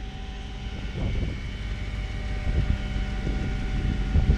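Vehicle engines idling with a low, uneven rumble and wind on the microphone, as a Chevy Suburban rolls off the tilted bed of a flatbed tow truck.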